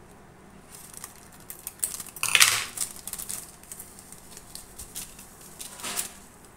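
A foil instant coffee sachet being handled and shaken out into a steel bowl: crinkling and rustling with many light clicks and taps. The loudest crinkle comes about two seconds in, and another near the end.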